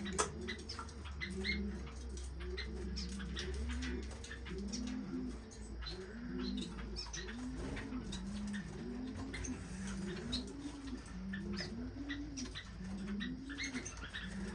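A dove cooing over and over, about one low rising-and-falling coo a second, with many small finches chirping and cheeping high above it.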